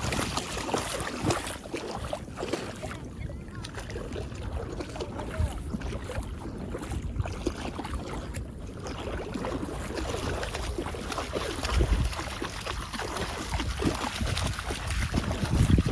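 Wind buffeting the microphone outdoors by the sea, a steady rushing noise with stronger low gusts about 12 seconds in and again near the end.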